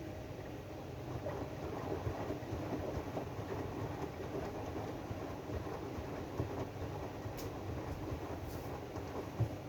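AEG washing machine running its drum-clean cycle: a steady motor hum under the rumble of the turning drum, a little louder from about a second in, with a short knock near the end.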